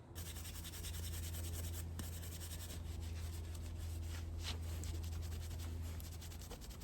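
Motorcycle brake pad being scrubbed and scraped clean of built-up grime and road salt: a run of quick, rasping scratching strokes over a steady low hum.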